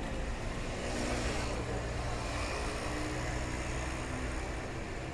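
A motor vehicle passing on a city street: a steady engine hum with a hiss of tyres on the wet road that swells about a second in and then eases.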